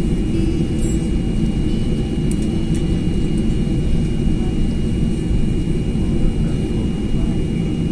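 Cabin noise inside a Boeing 737-800 rolling on the ground after landing: a steady low rumble of the CFM56 engines, airflow and wheels on the wet pavement, with a thin steady whine above it.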